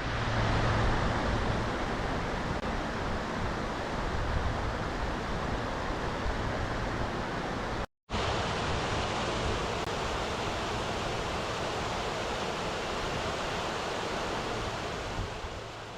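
Waterfall in full flow: a steady, even rush of falling water. It drops out for a moment about halfway through and comes back much the same, then fades down near the end.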